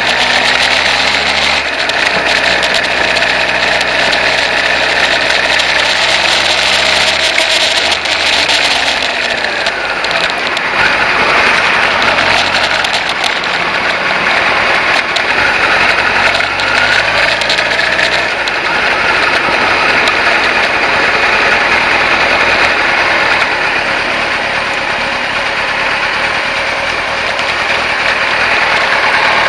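Kawasaki ZZ-R1100's inline-four engine running as the motorcycle is ridden, with wind noise on the microphone that is heaviest in the first third. The engine note is steady at first, drops about eight seconds in as the bike slows, and rises and falls briefly in the middle.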